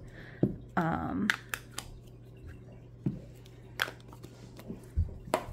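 Scattered sharp clicks and taps of paper-crafting tools and cardstock being handled on a table, with a brief murmured voice about a second in, over a steady low hum.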